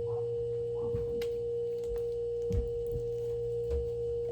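A steady, unchanging pure tone, like a tuning fork or electronic hum, held at one pitch throughout, with a few soft thumps and faint clicks beneath it.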